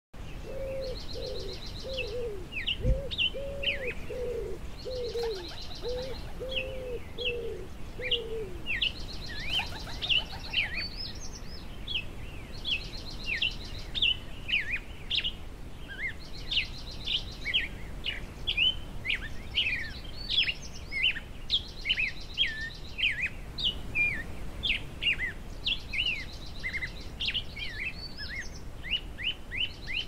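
Songbirds singing steadily: quick high chirps and sweeps, with a buzzy high trill repeated every few seconds. For the first eight seconds a low, even series of about a dozen cooing notes runs underneath.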